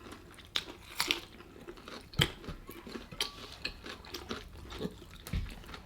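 Close-up chewing and crunching of crispy fried chicken, with scattered short crackles and mouth noises.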